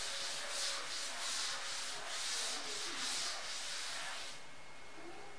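Blackboard duster rubbing back and forth across a chalkboard, erasing chalk writing in quick scratchy strokes about two or three a second; the wiping stops about four seconds in.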